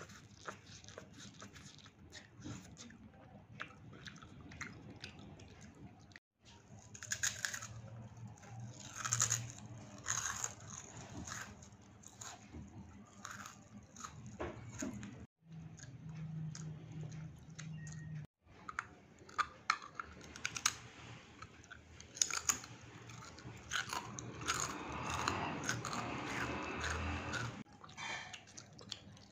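Close-miked eating sounds of chow mein noodles and crackers: sharp crunching bites and wet chewing, with a denser, longer stretch of noodle-slurping and chewing near the end. The sound stops dead briefly three times at edit cuts.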